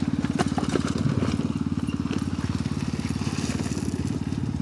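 Honda XR 250 Tornado trail motorcycle's single-cylinder four-stroke engine idling steadily with a fast, even beat.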